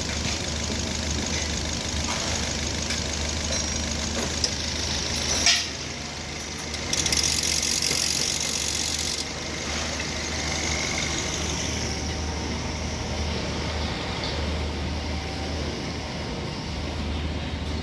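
Mazda car engine running with the air-conditioning compressor engaged, a steady low hum; the compressor is the part said to be noisy. A sharp click about five and a half seconds in, and a burst of hiss lasting about two seconds around seven seconds in.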